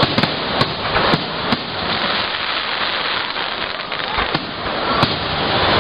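Fireworks display: aerial shells bursting with sharp bangs, several in quick succession in the first second and a half, then more about four and five seconds in, over a steady noisy hiss.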